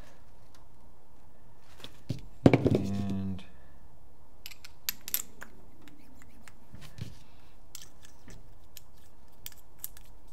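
Paper towel rustling and small metallic clicks as the aluminium bolt parts of a paintball marker are wiped and turned in the hands. The loudest sound is a brief vocal sound from the person, about two and a half seconds in.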